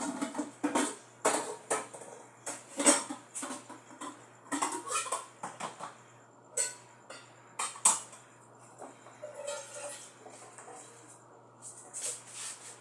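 Kitchen pots and utensils being handled, an irregular string of sharp clinks and clanks of metal and crockery.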